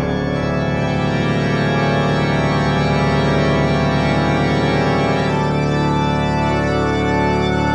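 Music: a sustained organ chord that shifts to a new chord about five seconds in.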